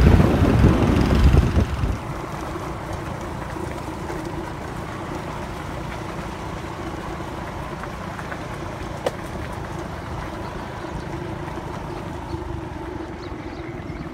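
Steady engine drone of a moving vehicle, with wind buffeting the microphone for the first two seconds.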